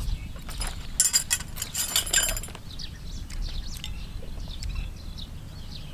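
A person eating soup, slurping noodles, with a metal spoon clinking against the bowl in a burst about one to two and a half seconds in. Small birds chirp throughout.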